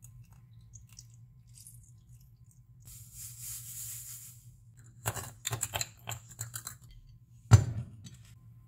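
Granulated sugar pouring from a bag into a glass of passionfruit pulp and lemon juice, a soft hiss about three seconds in. Then comes a run of quick clinks and taps of a spoon against glass, and one sharp knock near the end.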